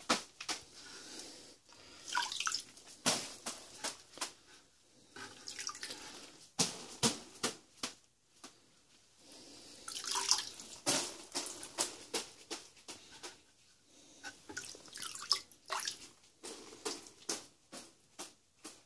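Water flicked from a wet brush spattering onto dry sand-cement mortar in a shower-pan bed, in irregular runs of sharp splashes. The dry mix is being wetted so it can set before it is floated.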